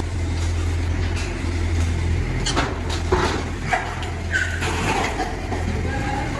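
A steady low machine hum, with several short, high squeals of piglets in the middle few seconds, some falling in pitch and one held briefly.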